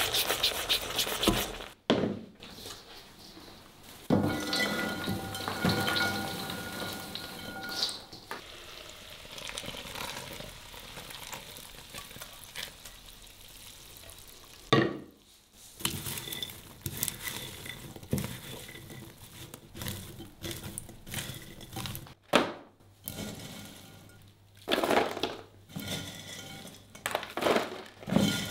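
Silicone spatula stirring bubbling watermelon syrup in a stainless steel saucepan. The syrup is then poured and scraped from the pan onto popcorn in a glass bowl, with light clinks of pan and spatula against the glass. Near the end, gloved hands toss the coated popcorn in the bowl, giving a series of short knocks and scrapes.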